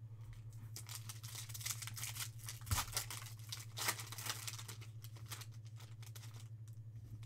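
Foil trading-card pack torn open and crinkled by hand: a run of crackly rustling that thins out after about five seconds, over a steady low hum.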